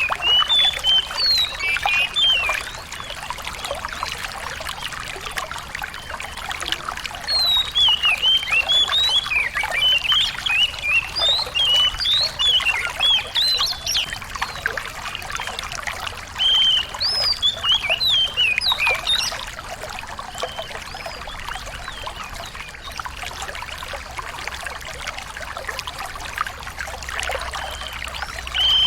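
Small songbird chirping in quick runs of short, sharp, rising and falling notes, in spells of a few seconds with pauses between them, over the steady trickle of running water.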